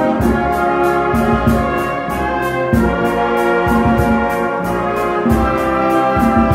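Concert band playing, with brass chords sustained over a low bass line and a steady high percussion tick about three times a second.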